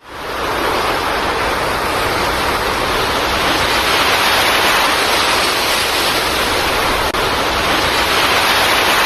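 Waterfall pouring: a steady, loud rush of falling water, fading in over the first half-second.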